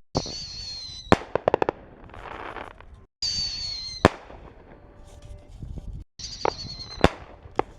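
Whistling reloadable mortar shells going off three times: each time a high whistle lasting about a second, then a sharp bang. A quick string of crackling pops follows the first bang.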